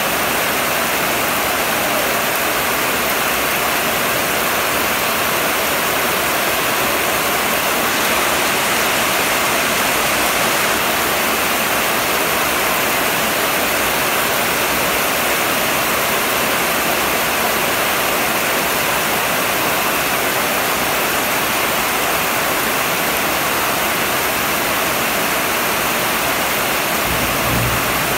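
Heavy rain pouring down steadily, a dense, even rush of downpour.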